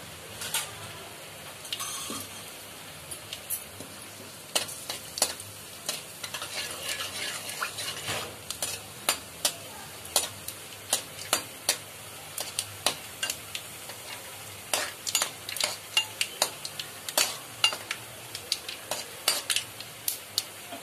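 Cashew pieces sizzling in hot oil in a kadai while a metal slotted spatula stirs them, clicking and scraping against the pan. The clicks are sparse at first and then come quickly and irregularly from about four seconds in.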